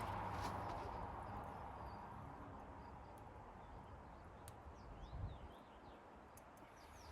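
Wind noise dying away, then a few faint, high chirps of a small bird about five seconds in.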